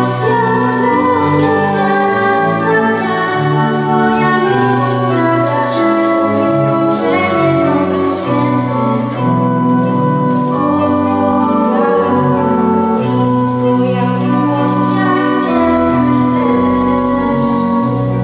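A woman singing a slow song with organ accompaniment, the organ holding long low chords under her voice.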